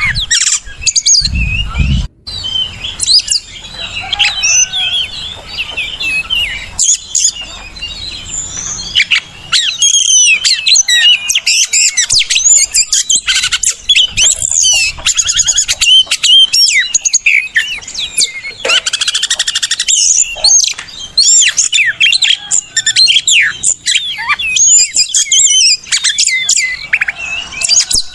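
Oriental magpie-robin (kacer) singing a long, rapid, varied song of whistles and chirps without pause. This is a trigger and tutor recording meant to get captive birds to sing. There is a brief low rumble about two seconds in.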